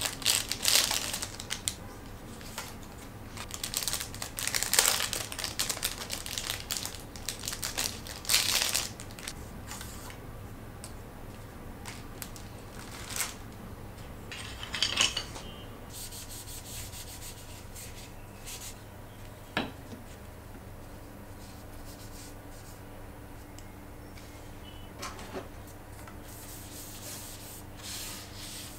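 Plastic wrapping crinkling and paper towel rubbing against wood as wooden spoons are unwrapped and wiped down. The rustles are densest in the first third, then thin out to a few light knocks.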